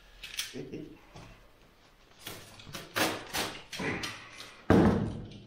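Clear plastic stretch film rustling and crinkling in a quick run of bursts as it is pulled and pressed over the ceiling cornice, then one heavy thump near the end.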